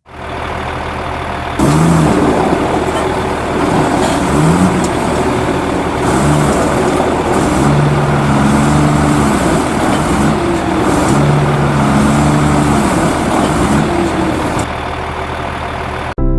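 Backhoe loader's diesel engine running, with the engine note repeatedly revving up and dropping back. It gets louder about a second and a half in and cuts off abruptly near the end.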